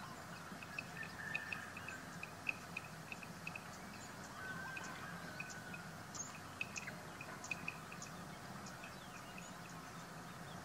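Outdoor animal ambience: a steady run of short, high chirps, with a faint drawn-out call about a second in and a longer one about four and a half seconds in.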